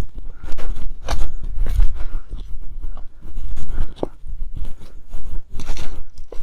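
Footsteps crunching and scraping over rock, an irregular run of short scuffs and knocks, over a continuous low rumble on the microphone.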